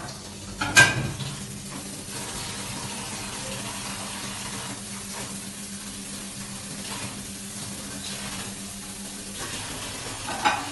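Tap water running into a stainless steel sink while plates are washed by hand, with a plate clattering against the sink about a second in and again near the end.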